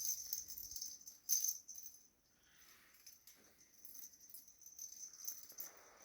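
Small bird toy rattling and jingling in short bursts as a pineapple conure plays with it, loudest about a second and a half in.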